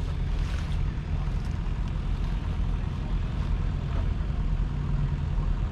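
A 2010 JCB Fastrac 3200 tractor's 6.7-litre six-cylinder diesel idling steadily.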